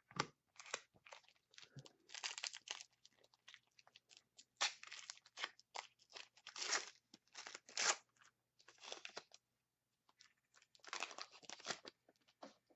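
Foil wrapper of a hockey trading card pack crinkling and tearing as it is opened by hand, in irregular bursts with a short pause near the end.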